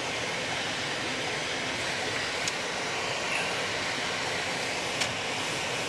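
Steady cabin noise of a car driving slowly, heard from inside: engine, tyres and ventilation blended into an even hiss, with two faint clicks.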